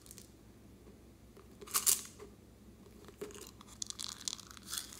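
Small plastic slime container being handled and its lid pulled off, with a sharp crackle of plastic a little under two seconds in, followed by scattered small clicks and rustles of the plastic being handled.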